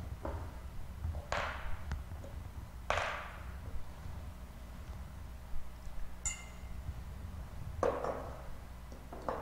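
A few separate clinks and knocks of glass and metal altar vessels being handled and set down, one with a short high ring, over a steady low hum.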